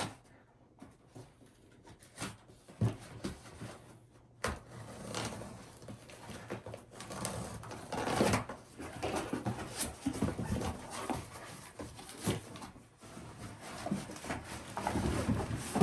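Handling noises of unpacking a speaker's carry bag from its packaging: irregular rustling with scattered clicks and knocks, sparse at first and busier from about four seconds in.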